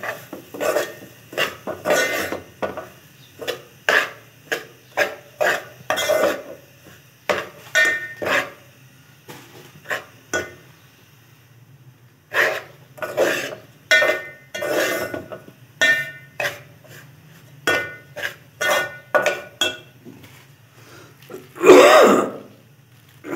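A steel spoon stirring and scraping semolina roasting in an aluminium pot, in uneven strokes with a faint metallic ring, pausing briefly around ten seconds in. One louder clank near the end.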